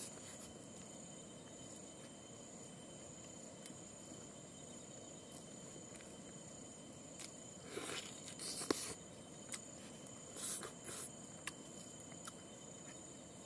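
Steady high insect trilling with two constant tones, typical of crickets. Over it come a few short crackling noises and sharp clicks of eating by hand, loudest a little past the middle.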